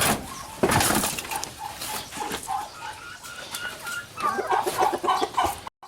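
Farmyard poultry calling in runs of short repeated notes, busier in the last second or two, with two brief rustling noises in the first second.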